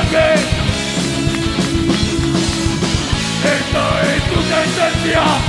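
Live rock band playing a song: electric guitar, bass and drums together, with a dense, driving drum beat.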